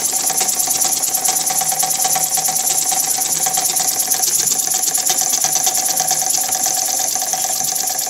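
Small spool-valve model engine, milled from one piece of aluminium bar stock, running fast: a rapid, even chuffing with a steady hiss of exhausting air or steam.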